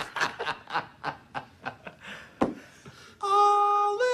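Men laughing in a run of short bursts, then a man's voice sings one long steady high note about three seconds in, stepping up to a higher note near the end.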